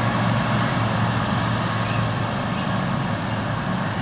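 Small engines of riding lawn mowers running steadily as they pass. A low engine hum is strongest at the start, drops a little about half a second in, and then eases off gradually.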